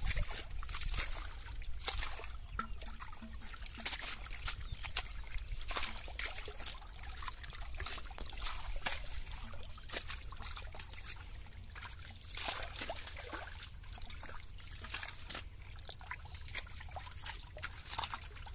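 Hands sloshing and splashing in shallow muddy water while groping for fish, a run of irregular small splashes and trickles.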